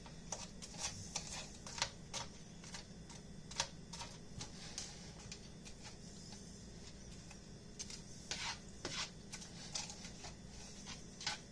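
Onions, peppers and mixed vegetables cooking in butter in a frying pan, sizzling faintly with scattered small crackles and clicks.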